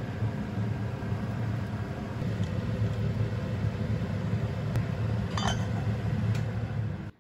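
Steady low hum and rumble, with one ringing metal clink about five and a half seconds in as a stainless steel lid is set on a pot. The sound cuts off suddenly near the end.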